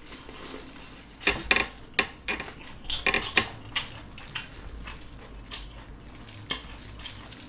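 Close-up wet crackling, clicking and slurping of raw soy-sauce-marinated shrimp (ganjang saeu) being pulled apart by gloved hands and eaten, head and shell included. Irregular sharp clicks and squelches come a few times a second.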